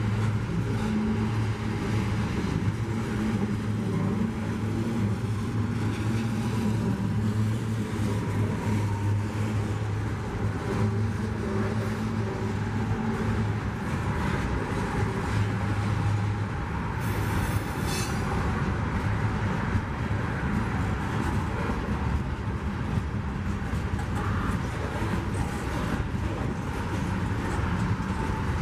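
Freight train of boxcars rolling past: a steady rumble of steel wheels on rail with many quick clicks, and a low steady hum that fades about sixteen seconds in. A brief hiss about seventeen seconds in.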